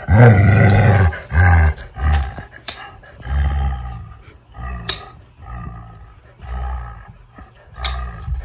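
A large livestock guardian dog growling in a run of low, rumbling bursts, each under a second long. A few sharp clicks cut in, the nail clippers snipping through its nails.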